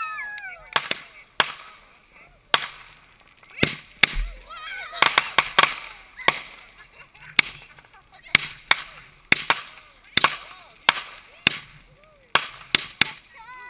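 Ground-launched consumer fireworks firing shot after shot, a sharp pop with each, irregularly spaced about every half second to a second, some in quick pairs.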